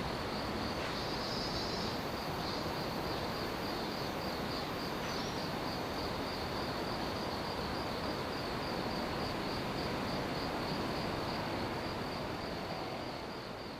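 Insects, likely crickets, trilling in a steady high pulsing chirr over a constant rushing background noise, fading out near the end.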